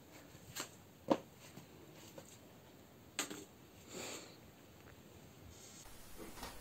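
A few faint knocks and scrapes of a long wooden stick on a concrete floor, the loudest about a second in, against quiet room sound.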